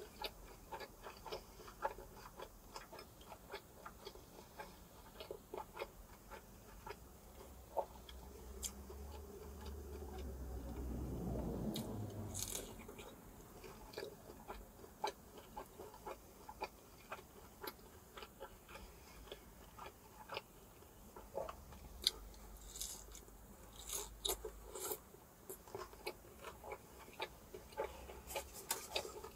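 Close-up eating sounds: crunching bites into a crispy, consommé-dipped birria taco shell and chewing, with many small sharp clicks and crackles throughout. A louder, longer swell comes near the middle.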